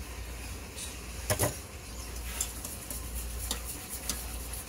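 Metal tongs clatter twice against a stainless steel frying pan about a second in, then a wire whisk stirs and ticks around a small saucepan of white liquid, over a light sizzle from the frying pan.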